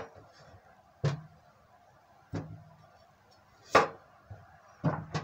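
Kitchen knife chopping down onto a cutting board: about six separate knocks at irregular intervals of roughly a second.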